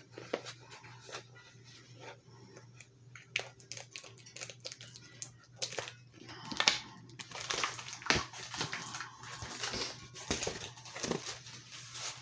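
Packaging crinkling and rustling as a mailed comic book is unwrapped by hand, with scattered clicks and crackles that grow busier and louder from about six seconds in.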